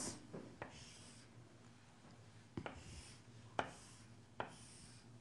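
Chalk drawing lines on a chalkboard: faint scraping strokes, with three sharp taps as the chalk touches down on the board.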